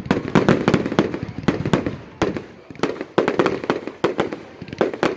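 Fireworks display: a rapid, irregular string of sharp cracks and bangs from bursting shells, several a second, with heavier booms about once a second.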